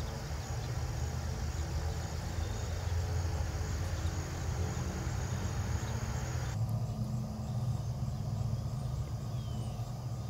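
Wind buffeting the microphone: an irregular low rumble, with a faint outdoor hiss that drops away about two-thirds of the way through.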